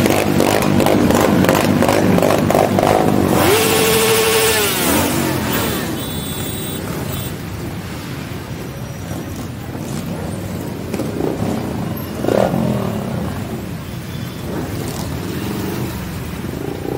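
Motorcycle engines running and revving as a parade of bikes passes, loudest over the first five seconds, then lower. A steady pitched tone sounds for about a second and a half, roughly four seconds in, and an engine revs up about twelve seconds in.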